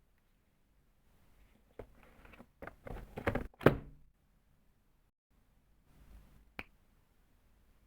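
Unboxing handling sounds: a cluster of knocks and handling noise from packaging and parts being handled, ending in a sharp click about three and a half seconds in, and one more click about three seconds later.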